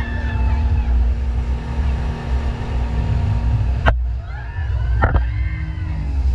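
Motorboat engine running steadily under a heavy low rumble, with two sharp clicks about four and five seconds in.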